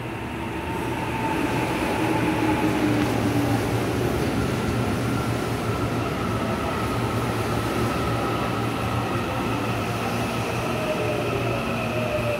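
Electric multiple-unit commuter train running into the platform and slowing. It grows louder over the first two seconds, then rumbles steadily along the rails with a low hum, and thin whining tones slowly fall in pitch as it decelerates.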